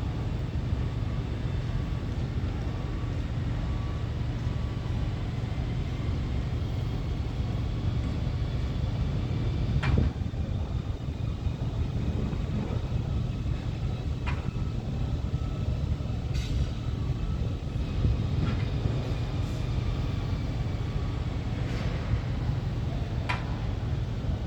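Steady low outdoor rumble of a city construction area, with about six sharp knocks scattered through it.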